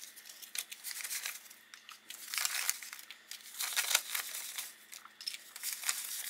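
US dollar bills rustling and crinkling as they are handled and sorted by hand, in quick irregular flicks and snaps of paper currency.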